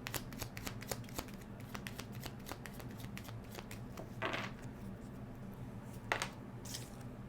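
Tarot cards being shuffled by hand: a quick run of soft card clicks, then sparser clicks with a couple of louder swishes of cards sliding.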